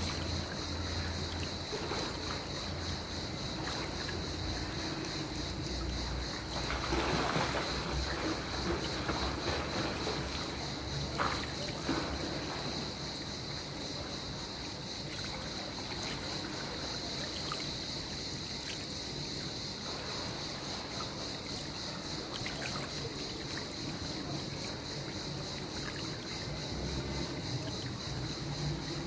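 Pool water splashing and lapping as a person swims, with a louder patch of splashing about seven seconds in, over a steady high-pitched hiss.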